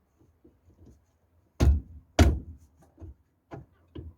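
Knocks on a VAZ 21099 rear brake drum as it is worked onto the hub, a tight fit over the brake shoes: two loud blows about a second and a half in, then three lighter knocks.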